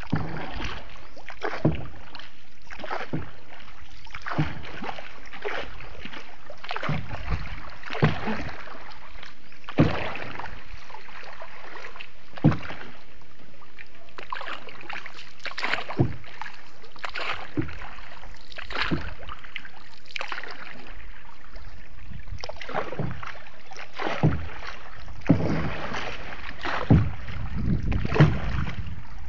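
Paddle strokes splashing in floodwater as a small boat is paddled along, about one stroke every second or so, with a few louder splashes near the end.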